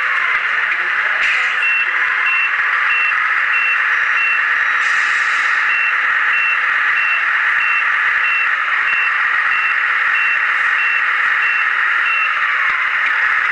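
Radio-controlled model truck reversing: a high electronic reversing beep repeats about one and a half times a second over a loud whine from its electric drive motor and gearbox, which slides up and down in pitch. The beeping stops about a second before the end.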